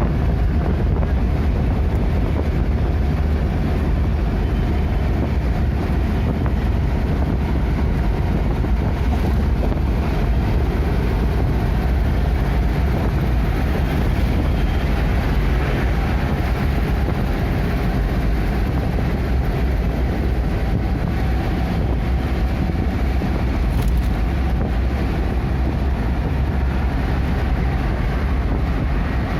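Steady low rumble of a moving vehicle, road and engine noise with some wind, unchanging throughout.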